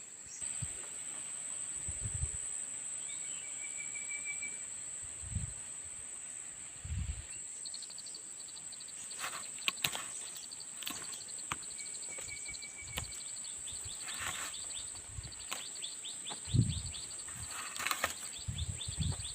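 Outdoor insect chorus: a steady, high-pitched drone throughout, joined about a third of the way in by fast repeated chirping, with two brief bird trills. Occasional soft low thumps and sharp rustles of handling close by.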